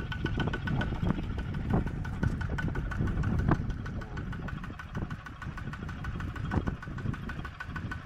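Mini tractor's single-cylinder diesel engine running steadily under way, a rapid even chugging, with a few sharper knocks in the first half.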